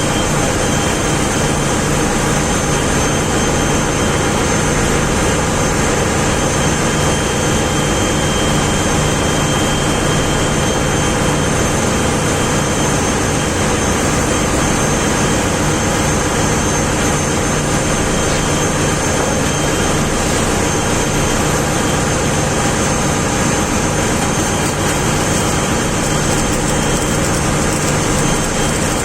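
Ship's machinery running with a loud, steady drone and a few constant hums.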